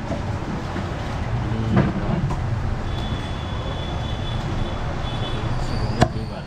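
Steady low rumble of background noise, with two knocks of a butcher's cleaver on a chopping block, one about two seconds in and a sharper one near the end.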